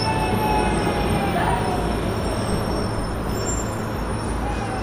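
Deep, continuous rumble of concrete grain silos collapsing, with a thin held tone over it.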